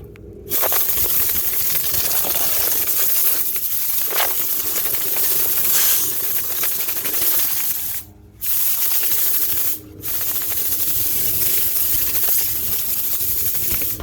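Loud steady hissing rush of air from dryer-vent cleaning equipment working in the duct, cutting out briefly twice, about eight and ten seconds in.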